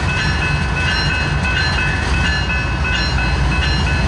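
GE diesel locomotive rumbling as it pulls its freight slowly past, with a steady run of short, bright strikes about two and a half a second, which sound like its bell ringing.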